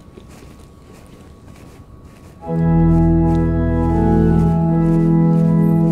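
Faint room tone, then about two and a half seconds in an organ comes in loudly with held chords over a sustained bass, changing slowly.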